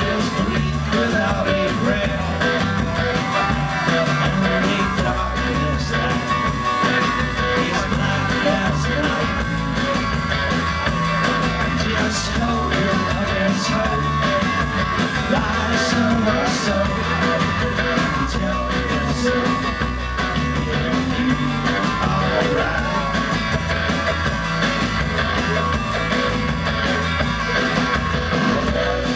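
Live rock band playing: drums and guitars, with a man singing over them through the club PA.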